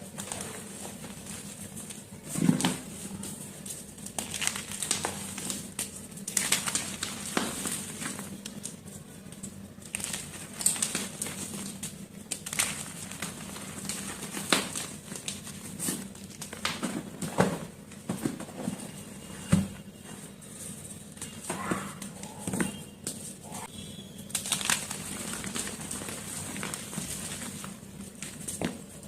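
White reformed chalk being crushed and crumbled, giving irregular crunches and crackles, some sharper and louder than others, over a soft background hiss.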